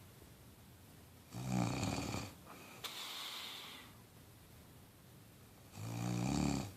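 A sleeper snoring: two snores about a second long, one just over a second in and one near the end, with a softer hissing breath between them.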